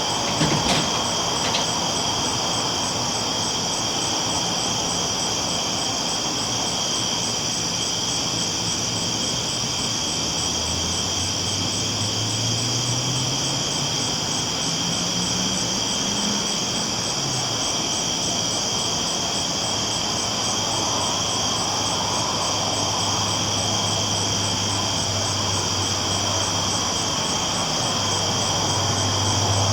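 A train rolling on the tracks at night, with a steady low rumble, a few sharp clicks near the start, and a low engine tone that rises in pitch partway through before settling back to a steady hum. Over it runs a constant high-pitched chirring.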